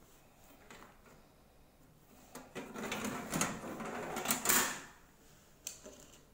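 Clattering and rubbing as the ring-bound copper plates are handled and moved, lasting about two seconds in the middle. A single sharp click follows near the end.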